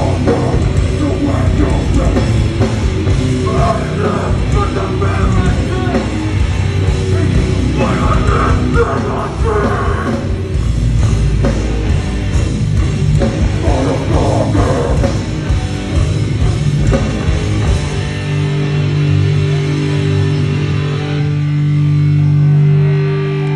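Hardcore punk band playing live, with distorted guitars, drums and shouted vocals, loud and dense. About eighteen seconds in the drums drop out and a held guitar chord rings on steadily to the end.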